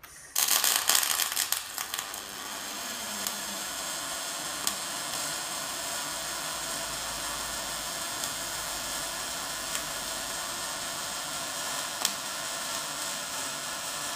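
Pulsed MIG/MAG welding arc from an EWM Picomig 180 Puls inverter. It strikes with a short crackle of spatter over the first second or two, where the torch was not held quite right. It then settles into an even, steady hiss with no spatter until the arc cuts off at the end.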